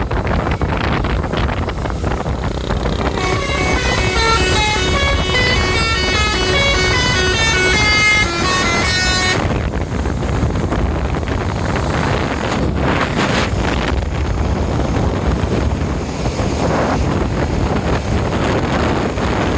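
Bus telolet horn playing a fast multi-note tune, several tones sounding together and stepping up and down in pitch, for about six seconds before cutting off abruptly. Steady wind and road noise runs underneath.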